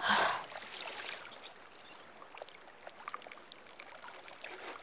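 Water gently lapping and trickling, with scattered faint small clicks. A short loud rush of hissing noise comes right at the start.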